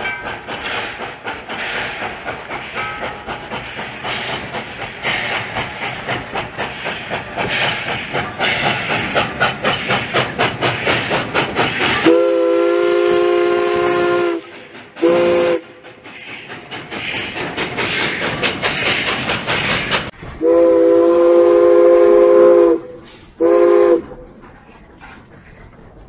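Nevada Northern Railway steam locomotive No. 81 working hard past, its exhaust chuffing in a fast, even beat. About twelve seconds in, its chime whistle sounds a long blast and a short one. It repeats the long-and-short pattern about eight seconds later, with the chuffing heard again in between.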